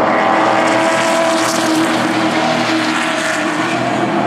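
Engines of a pack of racing trucks running hard together through a turn. Several engine notes overlap in a loud, steady blare with no break.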